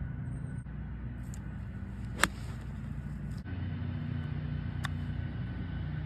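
Golf club striking a ball with a sharp, loud click about two seconds in, then a softer click from a short chip shot near five seconds, over a steady low rumble.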